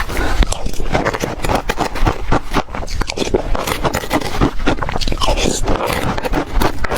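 Close-miked biting and chewing of frozen ice cake with yogurt, a dense, continuous run of crunching and crackling.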